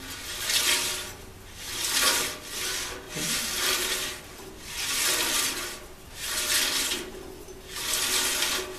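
Bandsaw drive belt and pulleys spun round by hand, a rasping swish that swells and fades with each push, about every second and a half. The belt has taken a set.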